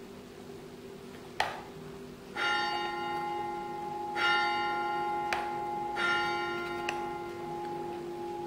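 A sharp click, then a bell strikes three times about two seconds apart, each stroke ringing on and overlapping the next.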